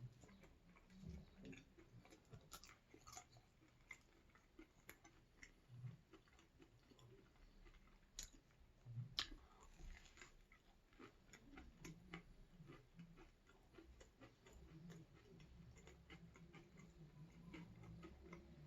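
Quiet chewing and mouth sounds of someone eating, with scattered soft clicks. The sharpest click comes about nine seconds in.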